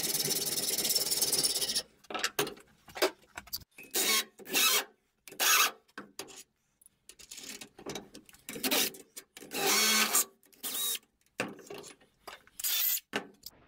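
Hacksaw cutting through a 10 mm threaded steel bar clamped in a vice, stopping suddenly about two seconds in. It is followed by a string of short scrapes, clinks and knocks as the cut pieces and tools are handled.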